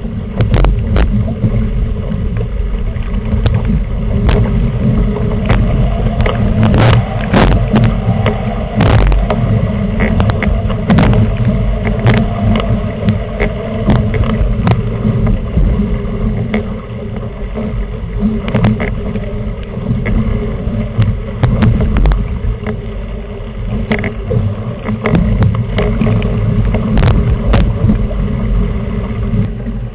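Strong wind rumbling on the microphone of a camera mounted on a Flying 11 sailing dinghy as it sails hard in 20–25 knots, with water rushing past the hull and many short, sharp knocks and splashes.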